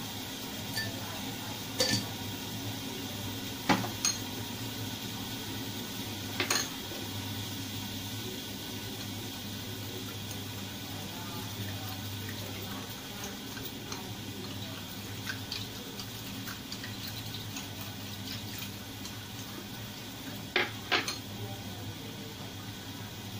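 A plastic spoon clinking against a porcelain bowl while stirring a soy sauce, sugar and cornstarch mixture: a few scattered clinks, two close together near the end, over a steady low hum.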